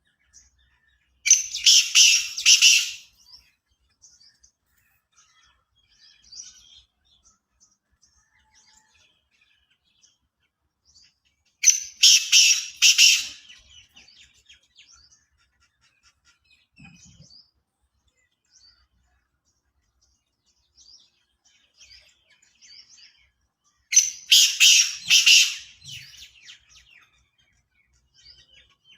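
Black francolin calling three times, about every eleven to twelve seconds, each a loud, harsh, grating phrase of several quick notes lasting under two seconds. Faint chirps of other small birds come in between.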